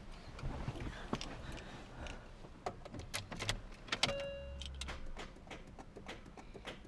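A run of sharp clicks and knocks from the Mini's door and controls as someone gets in to start it, with a short electronic beep about four seconds in. No engine is running.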